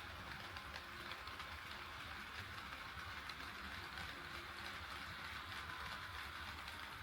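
HO-scale model train running on KATO Unitrack: a steady rolling hiss of metal wheels on the rails, with faint irregular clicks and a low motor rumble underneath.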